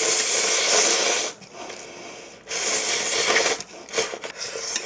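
Ramen noodles slurped from a bowl: two long, loud slurps of about a second each, then shorter slurps near the end.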